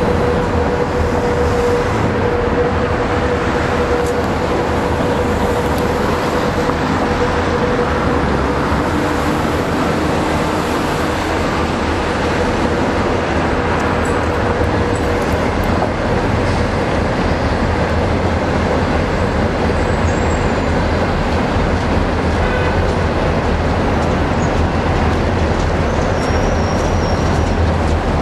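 EMD diesel switching locomotive running at low speed, a steady low engine rumble with wheel and rail noise, coming closer and passing near the end. A steady whine that fades out about halfway through.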